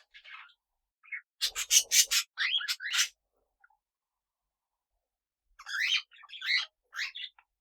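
Small pet parrots chirping and calling: a quick run of harsh chirps about a second and a half in, then a few gliding chirps, a pause of about two seconds, and another busy burst of chirps near the end.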